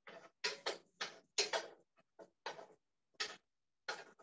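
A run of short, irregular scraping and rustling noises from kitchen work at the stove, about one every half second, cut off sharply between each.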